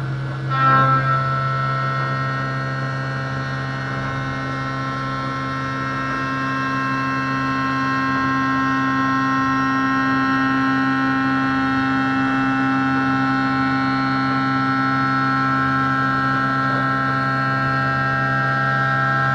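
Doosan CNC machining centre milling a 6082 aluminium plate: the spindle and end mill give a steady whine of several held tones over a low hum. The tones start after a brief louder burst about a second in.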